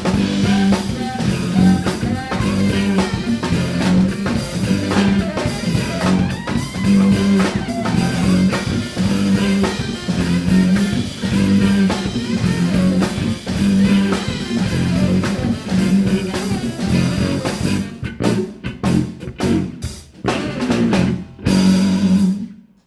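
Jazz quartet playing live, with a steady, pulsing low line and drums. About eighteen seconds in, the band breaks into a few separate accented hits, and the tune ends on a final hit that cuts off just before the end.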